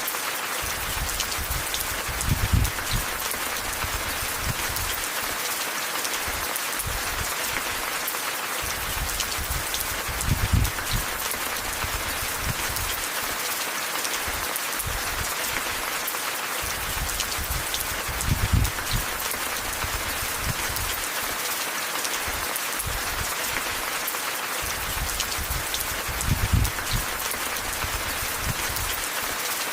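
Steady rain falling, an even hiss. A brief low rumble rises out of it about every eight seconds, four times.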